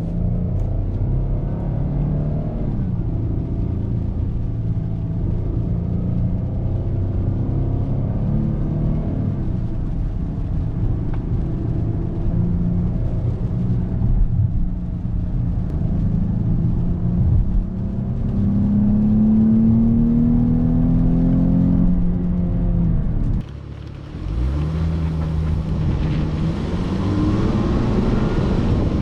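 2018 Dodge Charger engine running while driving, rising in pitch as it accelerates, most plainly in a long climb a little past the halfway point. The sound cuts out abruptly about three-quarters through and picks up again a second later.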